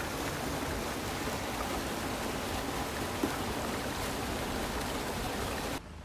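Small forest waterfall cascading over rocks into a stream: a steady rush of water that cuts off abruptly near the end.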